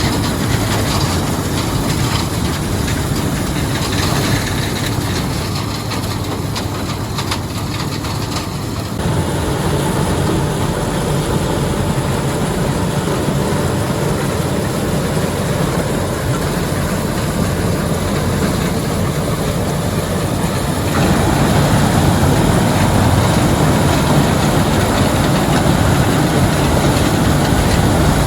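Heavy farm machinery running steadily. The sound shifts about nine seconds in and gets louder about twenty-one seconds in.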